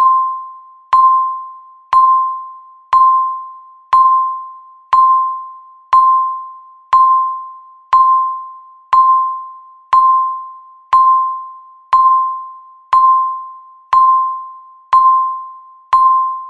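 Countdown timer beep sounding once a second, marking each second left in the final stretch of the countdown. Each beep is a single clear mid-pitched tone that starts sharply and fades away like a chime, seventeen in a row.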